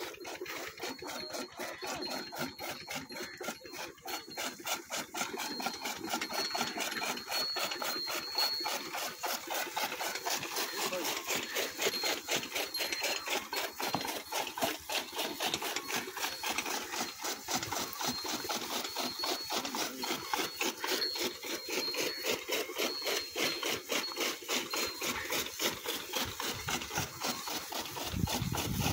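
Bullock-driven iron gear drive turning a flywheel chaff cutter, giving a steady fast rasping, grinding clatter of gears and blades. It grows louder near the end.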